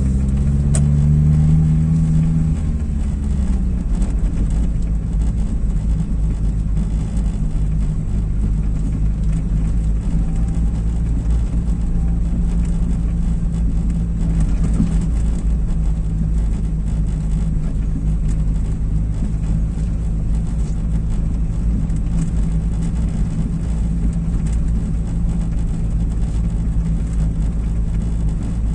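Inside a car's cabin: steady low engine and tyre rumble while driving slowly over brick-paved streets. The engine note rises and falls once in the first few seconds.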